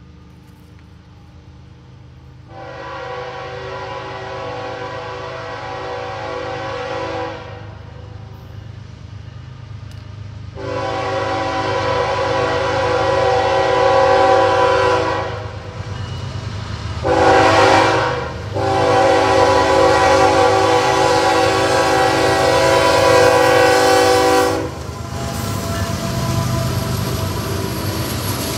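Norfolk Southern diesel freight locomotive's air horn sounding the grade-crossing signal: two long blasts, a short one, then a long one, each a chord of steady tones. Under it, the locomotives' diesel engines rumble louder as they pass close by near the end.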